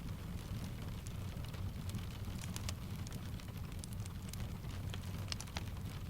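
Steady rain layered with a crackling wood fire: a continuous low rumble under scattered sharp crackles and drips.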